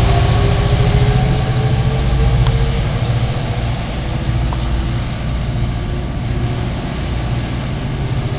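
NJ Transit PL42AC diesel locomotive pulling its train away: a heavy low engine hum with a faint tone slowly rising in pitch, fading steadily as the train moves off.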